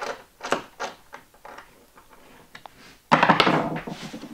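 A few light clicks and knocks as a hex driver turns the locking bolt of a stainless steel Power loc bench dog. About three seconds in comes a loud rattling scrape as the jig and its plywood base are shoved against the locked dog.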